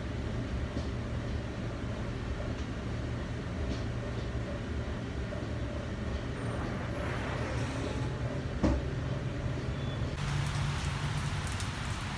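Steady low hum of kitchen refrigeration or ventilation, with a single knock about two-thirds of the way through. Near the end it gives way to the hiss of rain on a wet street, with traffic.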